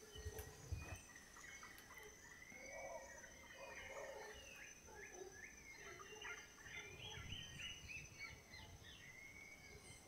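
Faint tropical rainforest soundscape: many birds chirping and calling, with a quick run of falling notes near the end, over a steady high insect whine. A couple of brief low thumps come about half a second in.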